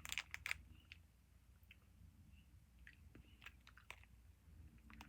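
A person chewing chewy candy close to the microphone: faint, scattered mouth clicks, with a quick run of louder clicks in the first half second.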